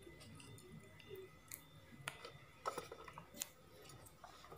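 A handful of faint, light clicks and taps: multimeter probes and their leads being lifted off the circuit board and handled.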